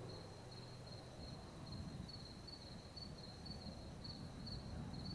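A cricket chirping at night: short high chirps at one pitch, about two a second, over a faint low rumble.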